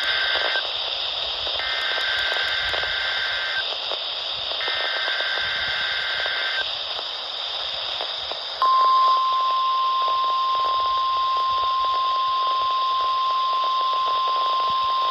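Weather radio receiver sounding the NOAA Weather Radio weekly test, over steady radio hiss. First come the SAME digital header bursts: three of them, about two seconds each with a second's gap, the first already under way and the last ending about six and a half seconds in. About eight and a half seconds in, a steady, louder single-pitch 1050 Hz warning alarm tone starts and holds.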